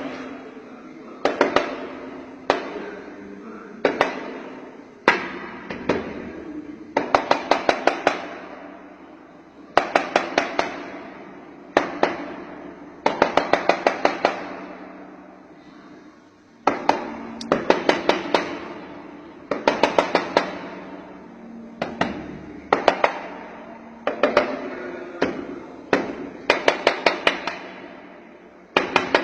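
Sharp knocks on something hard that rings after each blow, coming in irregular runs of one to six strikes a few times a second, with short pauses between runs.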